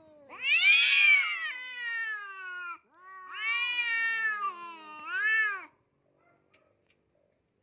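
Cats yowling at each other in a hostile standoff: two long, drawn-out yowls that bend up and down in pitch, the second ending in a rising and falling wail, then they stop about six seconds in.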